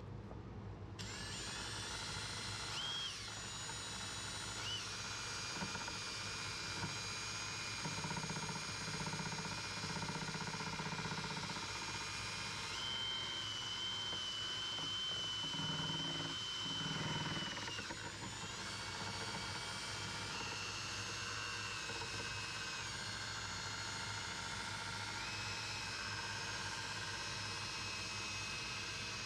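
Electric power tool running steadily with a high whine that starts about a second in and shifts up and down in pitch in small steps now and then.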